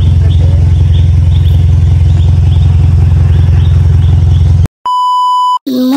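Off-road 4x4's engine running loud and steady close by, with a fast even pulse. About three-quarters of the way through it stops abruptly and a short, steady electronic beep follows.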